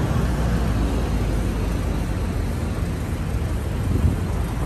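Street ambience: a steady rumble and hiss of passing road traffic, with no music or speech.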